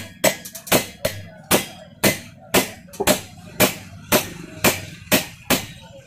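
Hammer blows on a steel drift rod driving a new bush into the base of a steel mixer grinder jar: sharp metallic knocks, about two a second, each with a brief ring.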